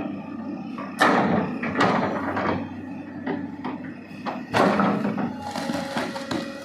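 A series of sharp knocks and clatters, the loudest about a second in and another about two-thirds of the way through, each dying away quickly.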